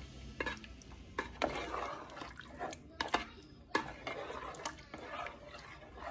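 A utensil stirring thick tomato sauce in the multicooker's cooking pot: wet, sloshing sounds with scattered clinks of the utensil against the pot.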